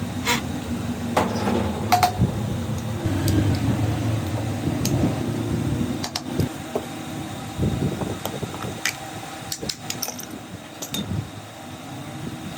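Workshop handling noise: a steady low hum with scattered sharp clicks and knocks of tools and parts.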